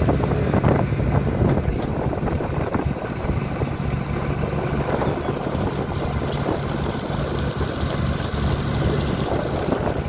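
Motorboat engine running with a steady low drone, with water splashing along the hull and wind buffeting the microphone.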